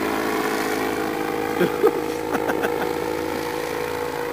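Four-stroke 16 HP Briggs & Stratton engine of a paraglider trike buggy droning steadily in flight, held at constant power, with a few light clicks about halfway.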